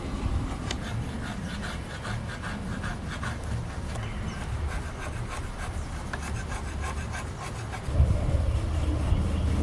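Repeated hand rubbing strokes on the wooden chair, in an uneven run of short strokes. A louder low rumble comes in near the end.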